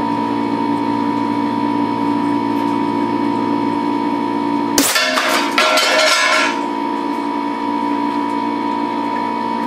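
A DIY big-bore pneumatic air rifle fires a single shot of a cast lead slug at about 320 psi: a sharp crack about five seconds in, followed by about a second and a half of clatter and ringing. A steady hum with several tones runs underneath the whole time.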